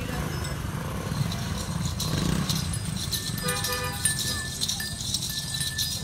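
Cattle hooves clopping and shuffling on a hard floor, with faint voices in the background.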